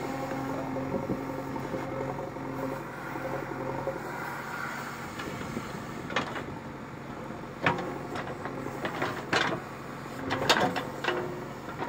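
JCB 3DX backhoe loader's diesel engine running steadily while the backhoe digs a trench. A few sharp knocks in the second half come from the bucket and arm working the soil.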